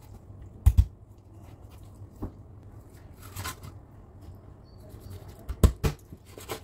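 Kitchen knife chopping a raw whole chicken on a wooden cutting board: two sharp knocks about a second in and two more near the end, with lighter cuts and handling rustle between.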